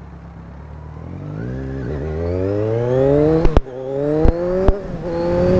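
Kawasaki Z1000 inline-four motorcycle pulling away and accelerating, its engine note rising, dropping at a gear change, and rising again before settling to a steadier pitch. A few sharp cracks sound around the middle. It runs through the stock exhaust with the catalyst box and baffles removed.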